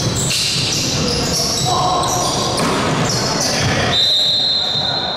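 Basketball game play in a gym hall: a ball bouncing on the hardwood court and many short, high sneaker squeaks, all with the hall's echo. About four seconds in, a longer steady high tone sounds.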